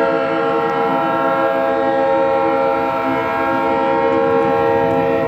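Diesel locomotive air horn, from the ex-Florida East Coast GP38-2 leading the train, sounding one long sustained chord for the grade crossing as the train approaches, then cutting off near the end.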